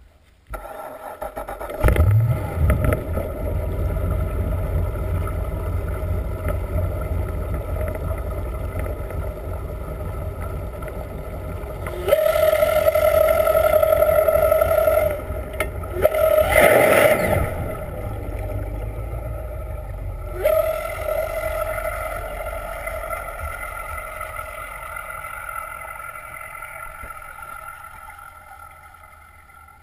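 Malibu VLX wakeboard boat's inboard engine and propeller heard underwater: a low rumble with a steady whine that comes in sharply about half a second in, gets louder for a few seconds past the middle with a brief surge, then fades away gradually as the boat moves off.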